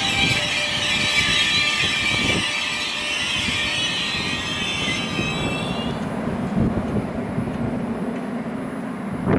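Electric passenger train passing at speed: a high whine of several tones fades out about five to six seconds in, over a steady rumble that carries on to the end.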